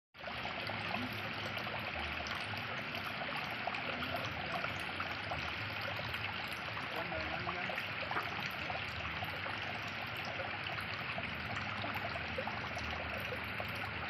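Thin streams of water pouring and trickling off an earthen bank into a muddy pool, a steady splashing with many small drips and plinks scattered through it.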